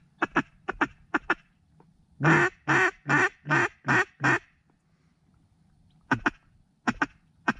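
A mallard duck call blown in a hen mallard's voice: pairs of short quacks, then a run of six longer, evenly spaced quacks, then more short paired quacks near the end.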